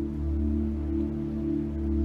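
Slow background music of long, held low tones over a deep steady hum, with no clear beat.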